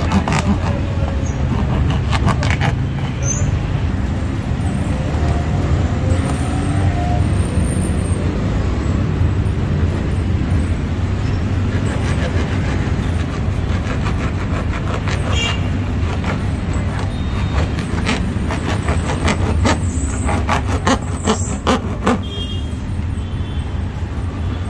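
Busy street noise: a steady low rumble of passing traffic with faint voices, and runs of sharp clicks and clatters at the very start and again about three-quarters of the way through.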